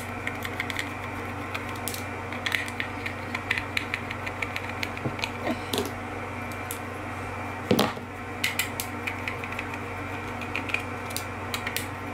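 Screwdriver scraping and clicking against the plastic housing of a solar post light while prying out its glued-in solar panel: a run of small scrapes and clicks, with one louder knock about eight seconds in. A steady low hum runs underneath.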